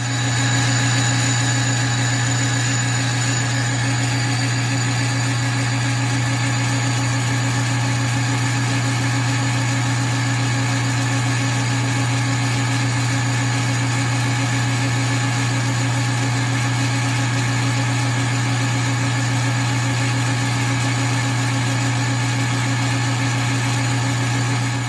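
Metal lathe running steadily while its tool takes a cut along a 12L14 leaded-steel bar, making a constant hum with a steady higher whine over it.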